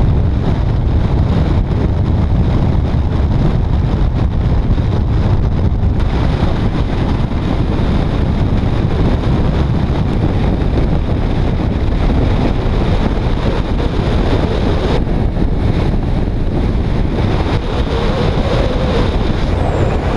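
Heavy wind rush on a motorcycle-mounted camera's microphone at highway speed, with road and motorcycle noise underneath.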